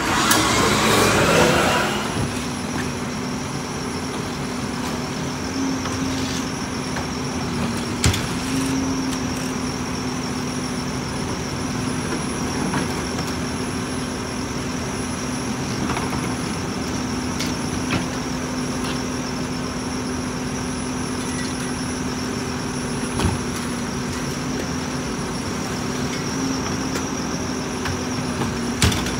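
Mack LEU garbage truck idling steadily at the curb, a constant hum with a thin high whine over it. It opens with a loud rushing noise that dies away within about two seconds. A few sharp knocks are scattered through.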